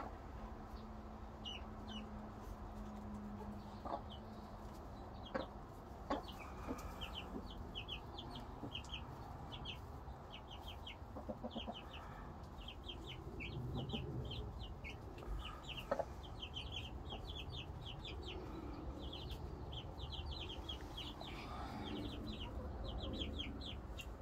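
Young chicks peeping almost without pause: short, high, falling cheeps, several a second, while an adult hen clucks low now and then. A few sharp knocks stand out.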